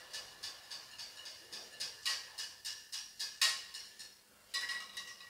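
Wire whisk clicking against a glass bowl while stirring a thin milk syrup, a regular run of light ticks about three or four a second.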